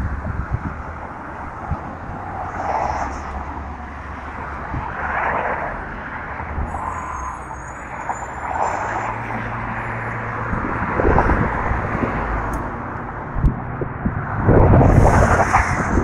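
Road traffic on a bridge with wind buffeting the microphone: a steady rumble of passing vehicles, with the rumble growing heavier near the end.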